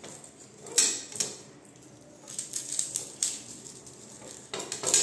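Large kitchen knife scraping and cutting the papery skin off a garlic bulb: several short scratchy strokes, one about a second in, a cluster in the middle and a louder pair near the end.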